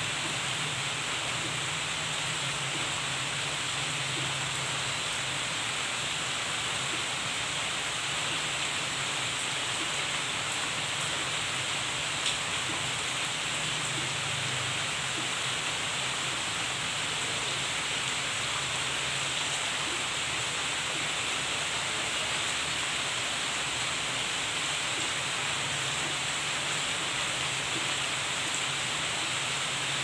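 Steady rain falling on palm fronds and garden foliage, an even hiss without let-up, with a single sharp click about twelve seconds in.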